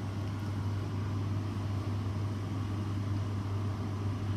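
Steady low hum with an even hiss over it: a ventilation fan running.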